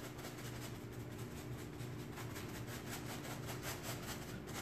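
Paintbrush scrubbing chalk-type paint into upholstery fabric in quick back-and-forth strokes, about five or six a second, over a steady low hum.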